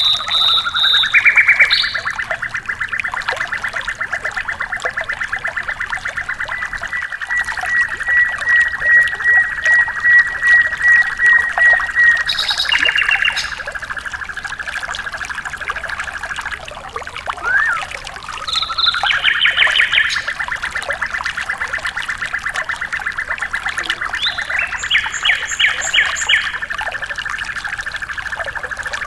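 Songbird singing two long, very fast trills on one steady pitch, the first breaking off a little past the middle and the second starting again shortly after, with short higher notes at their starts and near the end, over trickling water.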